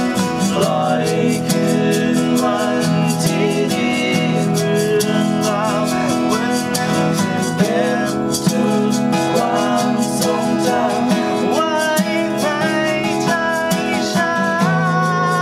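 Acoustic guitars strummed in a steady rhythm while men sing a slow, tender pop ballad.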